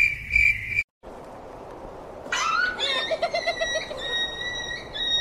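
A puppy howling in long high-pitched cries, with a quick run of short yips about three seconds in. Before that, a steady high chirring cuts off suddenly under a second in.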